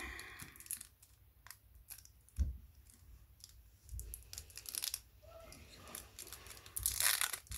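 Thin plastic wrapper being peeled off a crab stick by hand: light, irregular crackling and crinkling of the film. There is one soft thud about two and a half seconds in.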